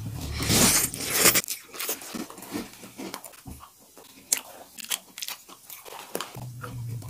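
Two people slurping noodles loudly for about the first second and a half, then chewing with scattered crunchy bites into chocolate cookies.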